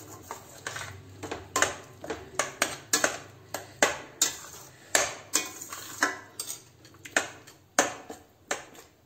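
Metal spatula scraping and clinking against a stainless-steel kadhai while stirring thick pav bhaji, in irregular strokes about one or two a second that stop just before the end.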